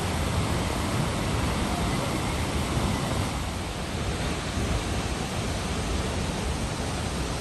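Waterfall noise: a steady, even rushing of falling water.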